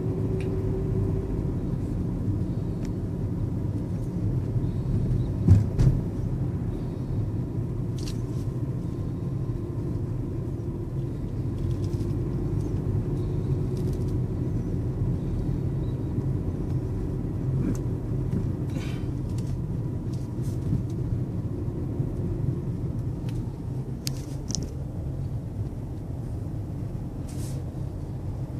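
A car being driven, heard from inside the cabin: a steady engine and road rumble, with scattered light clicks and one sharp thump about five and a half seconds in.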